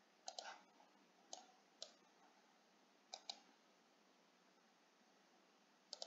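Faint computer mouse clicks, several single clicks and quick pairs spread over a few seconds, with near silence between them.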